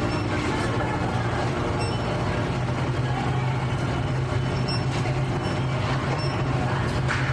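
Factory machinery running with a steady low hum and an even mechanical drone, a few faint ticks over it.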